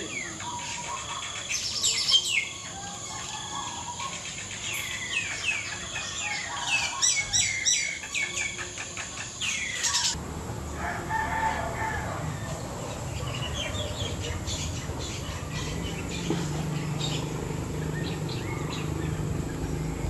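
Mynas calling and chattering, a dense run of sharp, repeated calls for about the first ten seconds. After that the calls thin out and grow fainter over a steady low background rumble.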